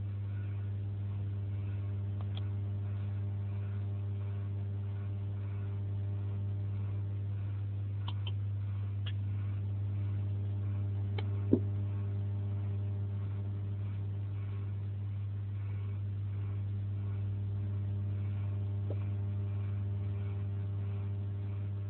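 Steady low electrical hum with a stack of overtones, with a few faint clicks and one sharp knock about halfway through.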